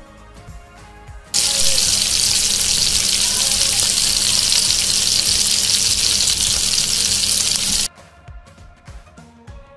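Pieces of koral (barramundi) fish sizzling loudly as they fry in hot oil in a pan, a steady hiss that cuts in about a second in and stops abruptly near the end. Background music with a beat before and after.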